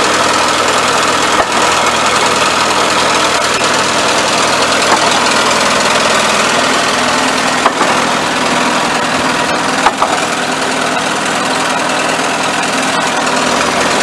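Wood-Mizer portable sawmill's engine running steadily, with a few sharp clicks.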